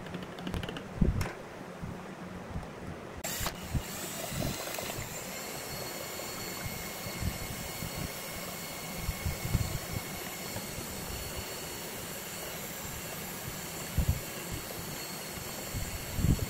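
Cordless drill spinning a mixing rod through epoxy resin in a plastic tub. It starts about three seconds in and then runs steadily. Before that there are a few knocks of handling, and there are a couple of low thumps near the end.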